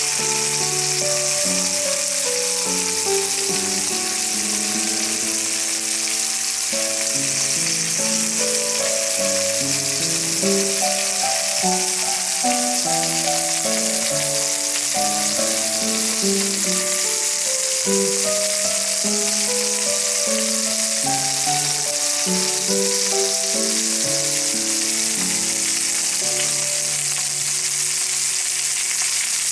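Lamb chops sizzling as they fry in ghee on a griddle pan, a steady hiss throughout. Background instrumental music plays a melody over it.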